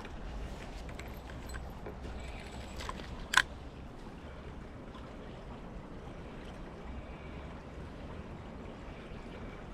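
Creek water flowing steadily, with a single sharp click about three and a half seconds in.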